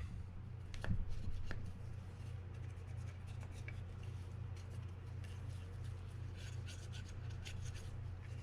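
Faint clicks and rubbing from a Fin-Nor Offshore 4500 spinning reel being handled, over a steady low electrical hum.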